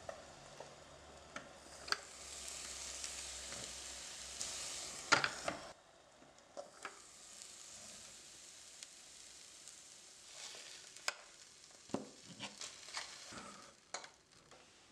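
Brains sizzling and hissing on the hot plates of an electric sandwich maker, loudest in the first half. Later come a series of sharp metal clicks and scrapes as a fork works the cooked brains off the nonstick plates.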